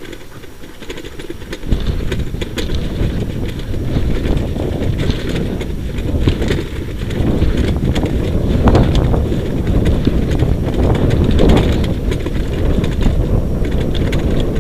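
Wheeled dog-racing rig running fast over a rough dirt track behind a husky team: a continuous rumble with dense rattling and crunching from the wheels and frame, getting louder about two seconds in.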